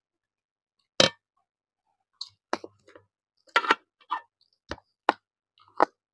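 Eating sounds: about seven sharp, irregular clicks and taps, the loudest about a second in, from a meal of rice and fish curry.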